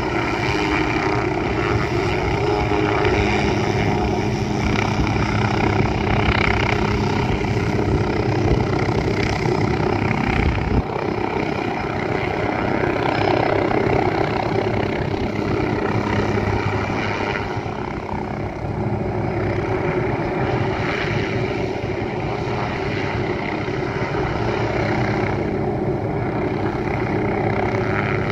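Hughes 369HS light helicopter with an Allison 250 turboshaft engine running steadily, its main rotor beating as it hovers low and air-taxis.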